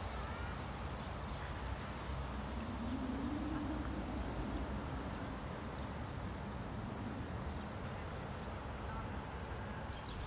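Steady outdoor city ambience: a wash of distant traffic noise, with a few faint bird chirps.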